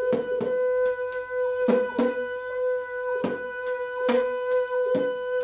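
Beatboxer humming one steady note through the nose while making an 8-beat drum pattern with the mouth at the same time: kick and snare sounds beat over the unbroken hum.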